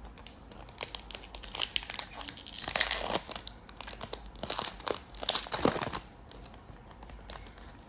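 Trading card pack wrapper being torn open and crinkled by hand, in irregular bursts of crackling that are loudest midway and die down for the last couple of seconds.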